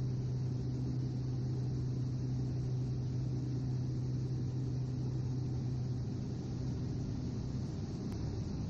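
Steady drone of the Cessna 208 Grand Caravan EX's PT6A turboprop engine and propeller in the cockpit in flight, with a low hum that weakens about six seconds in.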